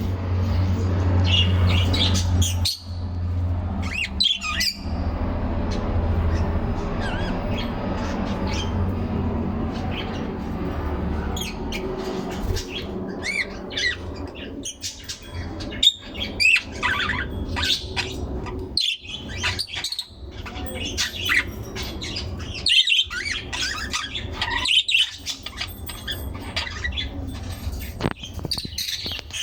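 Birds chirping and squawking in many short, overlapping calls, busier from about halfway through. A steady low hum runs beneath the first dozen seconds.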